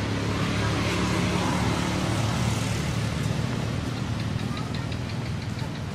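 A motor vehicle's engine running steadily, a low hum that is louder in the first half. Near the end comes a quick run of high chirps, about four or five a second.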